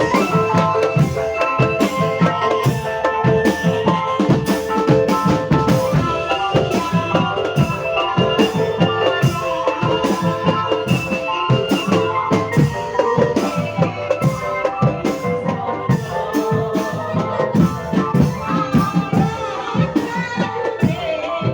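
Music with busy, steady drumming under held melodic tones from another instrument.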